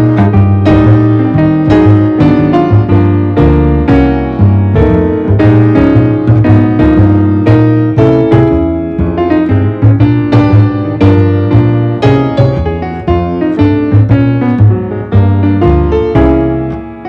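Background piano music: a steady run of piano notes over a low bass line.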